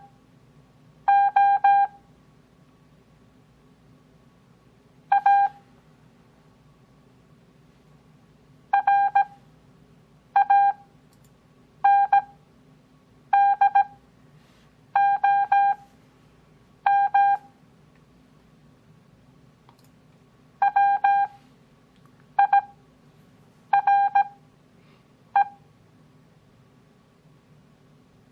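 Morse code (CW) practice tone: single characters keyed as quick beeps of one steady pitch at 17 words per minute, with long Farnsworth gaps of a second or more between characters for an overall speed of 6 words per minute. About a dozen characters sound.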